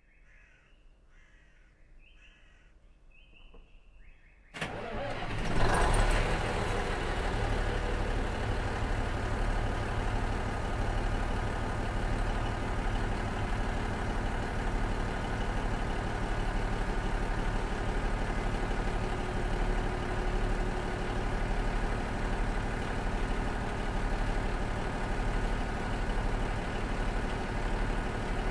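The Cummins DMF14HZ diesel engine of a KiHa 47 railcar starts with a sudden loud burst about four and a half seconds in. It peaks briefly as it catches, then settles into a steady idle.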